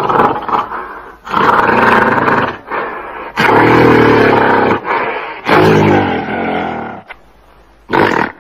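Gorilla roaring in four loud, drawn-out bouts of about a second to a second and a half each, with short pauses between them, then a brief final burst near the end.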